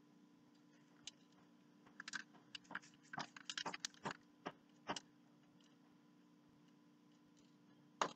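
Newspaper crinkling and rustling as it is handled: a run of irregular crackles over about three seconds, then one sharper crackle near the end.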